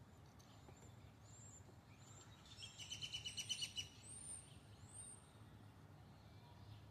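A small bird singing over a faint low hum: a few thin high notes, then a rapid trill lasting about a second, then two high slurred whistles.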